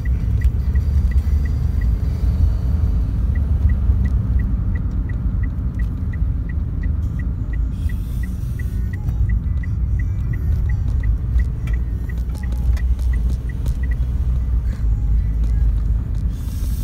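Car driving, heard from inside the cabin: a steady low rumble of engine and road noise. Over it, a faint regular high tick comes about three times a second for most of the stretch, then stops near the end.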